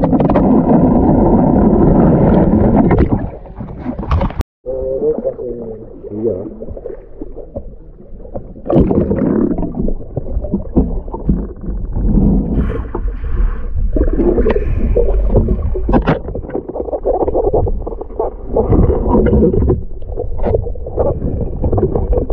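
Muffled underwater noise picked up by a camera submerged in a river: water sloshing and gurgling against the housing, with scattered knocks. The sound drops out completely for a split second about four and a half seconds in.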